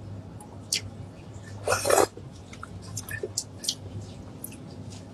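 Eating sounds: chewing, with scattered small clicks, and sauced meat being pulled apart by hands in plastic gloves. One louder, longer noisy burst comes about two seconds in.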